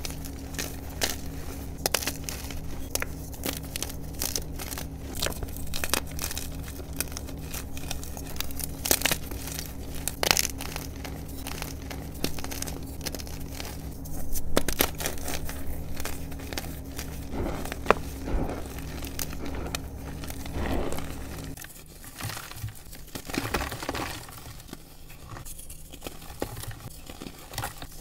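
Hands crushing soft reformed blocks of dyed gym chalk in loose chalk powder: a steady run of sharp crackles and crunches with soft powdery crumbling. A low steady hum underneath stops suddenly about three-quarters of the way through, leaving only the crumbling.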